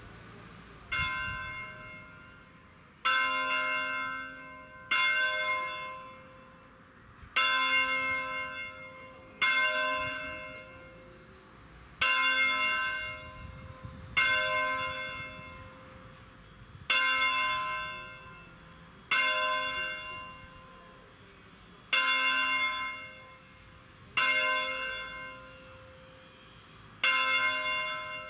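A single bronze church bell in C (Do 4), cast by Angelo Bianchi of Varese in 1928, rung "a distesa": it is swung full circle on its wheel in the Ambrosian style by an electric drive. Its clapper strikes once roughly every two to two and a half seconds, beginning about a second in, and each stroke rings out and fades before the next.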